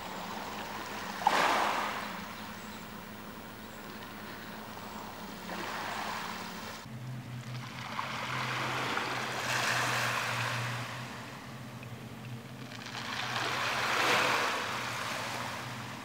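Small waves washing onto a pebble beach, rising and falling in four swells of hiss, over a faint steady low hum, with one sharp click just over a second in.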